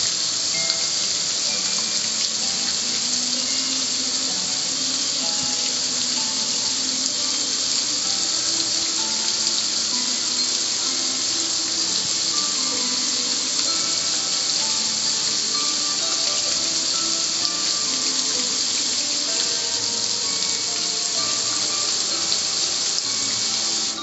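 Water sprayed from a hose onto a metal gas grill, a steady hiss and splash as it streams down the lid and control panel. Music plays underneath.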